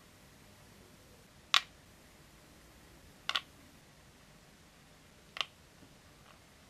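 Small plastic miniature burger pieces set down one by one on a plastic tray and stacked. There are three sharp clicks about two seconds apart, the second a quick double, and a faint tap near the end.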